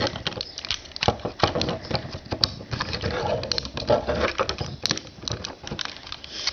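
Plastic action-figure parts clicking and rattling as they are handled and fitted together, a rapid irregular run of small clicks and knocks.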